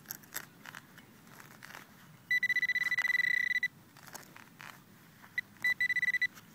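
Serrated digging trowel cutting into grass turf with short crunching scrapes, broken about two seconds in by a metal detector's high, steady electronic tone lasting over a second, then sounding again in a few shorter pulses near the end: the detector signalling a metal target in the hole.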